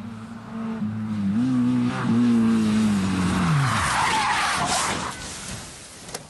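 Rally car engine running at steady revs, rising briefly, then its note dropping away steeply about three and a half seconds in, followed by a loud rushing, skidding noise with knocks as the car slides off the road through grass and brush.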